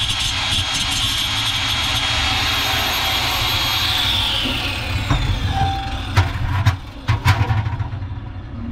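Angle grinder grinding metal at the oven fan wheel's hub, where the motor shaft end has mushroomed, its high whine falling as it spins down about four seconds in. Then a few sharp metal knocks as the fan wheel comes off the shaft and is set down.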